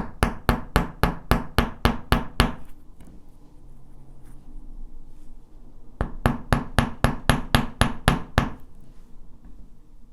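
A small hammer striking the tip of an 18-gauge gold-filled wire on a steel bench block to flatten it: quick, ringing metal-on-metal strikes, about five a second. One run ends about two and a half seconds in, and after a pause of about three seconds a second run of about a dozen strikes follows.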